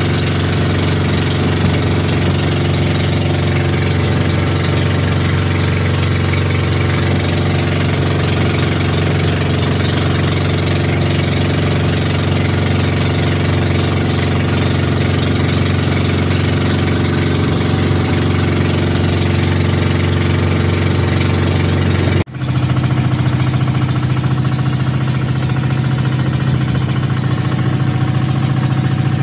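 Pump-boat engine running steadily and loudly as the outrigger boat moves along the river. There is a momentary break about three-quarters of the way through, after which the engine note is slightly different.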